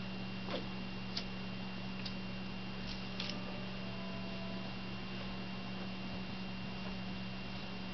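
Steady low electrical hum with a thin high whine over it, and a few soft ticks in the first few seconds.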